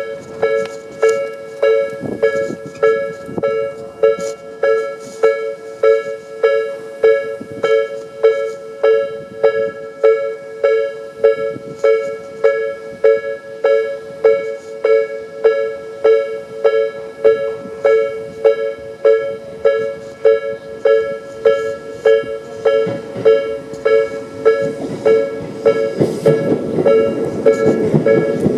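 Japanese level-crossing electronic warning bell of the slow-tempo Tobu 'B' type, two-toned dings repeating evenly at about three every two seconds. In the last few seconds the rumble of an approaching Tobu 800 series train rises under it.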